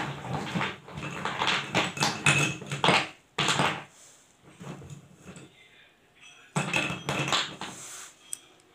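Slate pencils clattering against one another and against small terracotta clay pots as a hand rummages through the pile, in three bouts of rapid clicks and knocks.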